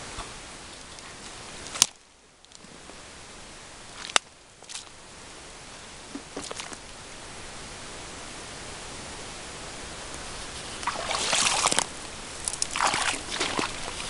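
Steady outdoor hiss with two sharp clicks, about two and four seconds in, then loud rustling from about eleven seconds in, near the end.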